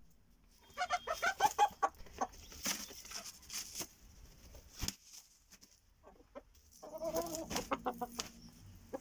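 Chickens clucking, as a rooster mounts a hen. There is a quick run of short calls about a second in, scuffling noises in the middle, and a second run of lower clucks near the end.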